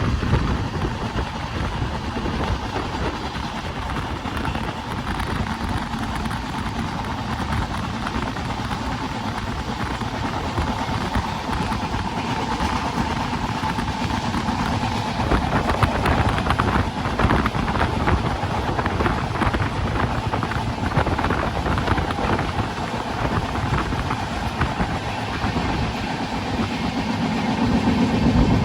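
Train running along the line: a steady rumble and rattle, with a low engine tone coming up and growing louder near the end.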